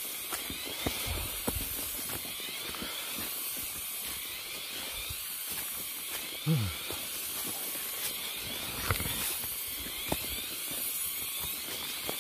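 Steady high-pitched hiss of forest background sound, with scattered light clicks and crunches of people walking through undergrowth. One short pitched sound falls sharply in pitch about six and a half seconds in.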